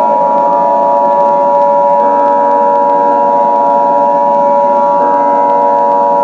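The Emergency Alert System two-tone attention signal: a loud, steady, harsh chord of two close notes held without a break. It announces an emergency alert message about to be read.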